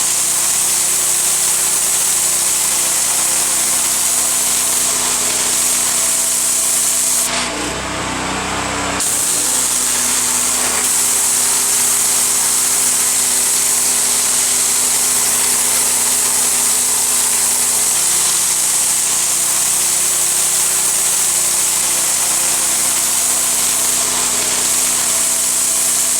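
Petrol-engined pressure washer running steadily, with the hiss of its high-pressure spray over the engine hum. The spray hiss drops out for a second or two about seven seconds in, then comes back.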